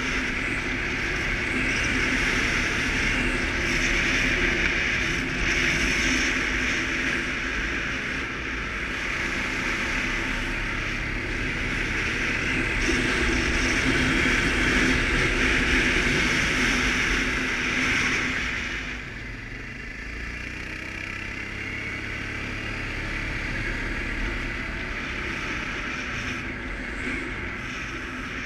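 Suzuki KingQuad ATV engine running steadily while riding, with a rushing noise over it; both get quieter about two-thirds of the way through.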